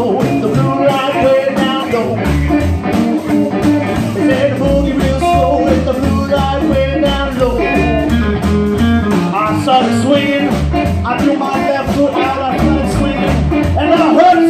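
Live blues band playing: amplified harmonica wailing long, bending notes through a handheld microphone over electric guitar, a walking upright bass line and drums.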